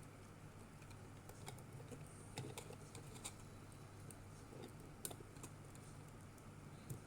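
Faint, scattered small clicks and taps of plastic parts and cables being handled as a small robot's head is worked loose, over a low steady hum.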